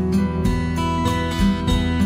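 Background music: a guitar instrumental with a steady beat.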